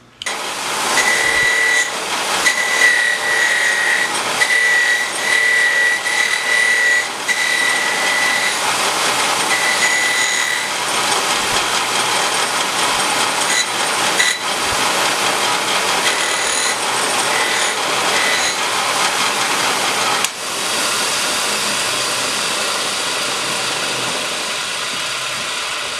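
Motor-driven wire wheel spinning and scratching against a freshly forged steel awl-chisel as it is wire-brushed, with a steady high whine coming and going through the first half.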